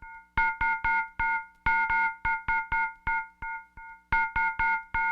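Electronic music: a synthesizer plays a fast, even pattern of short, bright chord stabs, about five a second, in phrases broken by brief gaps.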